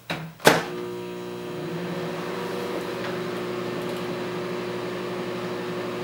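A sharp click about half a second in, then a Galanz microwave oven starts and runs with a steady electrical hum.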